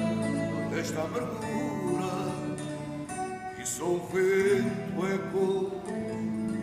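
Live music with guitar, held chords ringing and changing every second or two.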